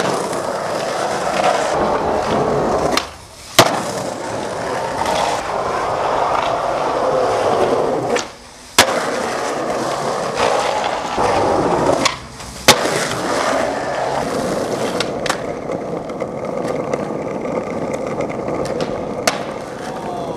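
Skateboard wheels rolling over concrete pavement. The rolling drops out three times, about 3, 8 and 12 seconds in, for the board's time in the air, and each gap ends with a sharp clack as the board lands.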